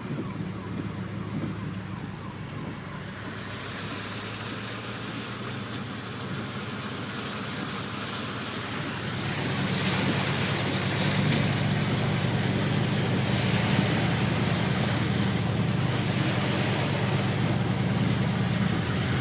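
A steady low engine hum under a rushing noise that grows louder about ten seconds in.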